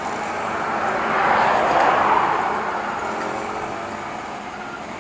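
A vehicle passing on the road. Its noise swells to a peak about a second and a half in, then fades over the next couple of seconds.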